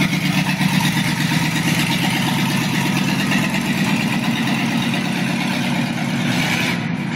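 1951 Chevrolet pickup driving away across pavement, its engine running steadily with an even low exhaust pulse.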